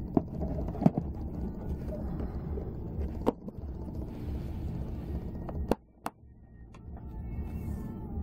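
Flambeau plastic pistol case being handled: a low rumble of handling with several sharp plastic clicks and knocks, two of them close together about six seconds in.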